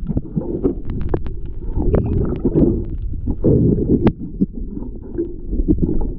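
Wind buffeting the microphone: a loud, gusting low rumble with scattered clicks and knocks.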